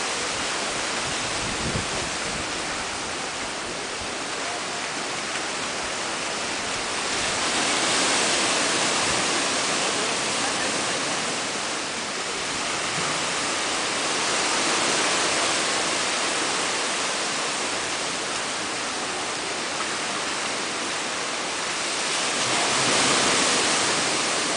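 Pacific surf surging into a narrow rock gorge, a continuous rush of churning water. It swells louder three times, each time a wave pushes in, about every seven or eight seconds.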